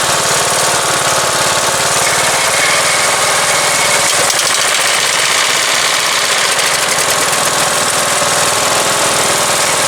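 Turf-Power lawn tractor's small gasoline engine running steadily at idle. The owner puts its poor running down to a gummed-up carburetor: it runs on fuel put into the intake, but not for long.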